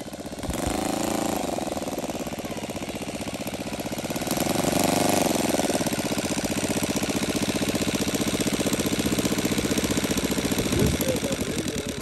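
Model radial engine of a large-scale RC Boeing F4B biplane running, its propeller spinning. The throttle is blipped up and back down about a second in and again around five seconds in, between steady running.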